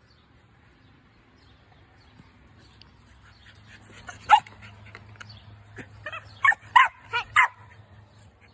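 Australian cattle dog (blue heeler) puppy barking in sharp, high barks during play: one about four seconds in, then four in quick succession near the end.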